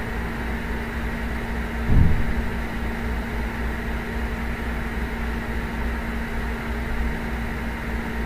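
Steady background hum with a constant low tone and a low rumble, of the kind a fan or air conditioner makes, with a single low thump about two seconds in.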